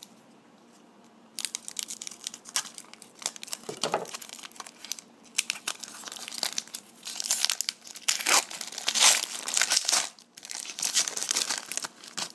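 Foil wrapper of a trading-card pack crinkling and tearing as it is handled and opened by hand, in quick irregular crackles that begin after a quiet second or so and are loudest in the latter half.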